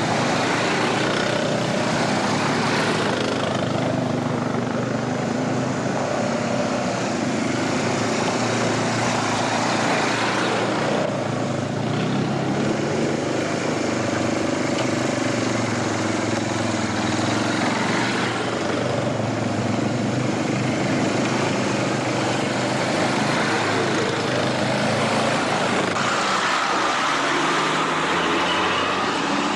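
A motor vehicle's engine running steadily, with a dense, even noise over it.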